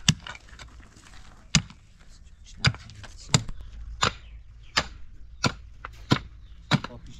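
A hand tool striking in a steady working rhythm: nine sharp blows, the first two about a second and a half apart, then about one every two-thirds of a second.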